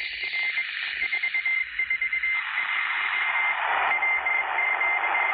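Morse code signal heard through a shortwave receiver in lower sideband on 4333 kHz: a single high tone keyed on and off in dots and dashes over radio hiss, which swells louder about two and a half seconds in.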